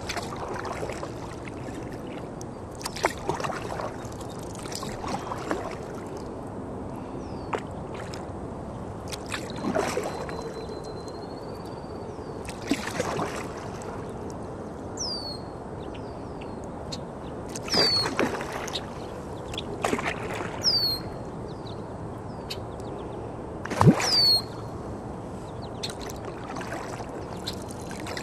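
Kayak paddle dipping and splashing in the water every few seconds, with water sloshing against the hull. A bird repeatedly gives a short chirp that slides downward in pitch.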